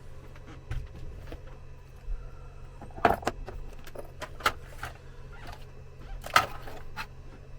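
Small hard parts being handled on a workbench, most likely the programming adapter and its leads: scattered clicks and knocks, the loudest about three seconds in and again a little after six seconds, over a low steady hum.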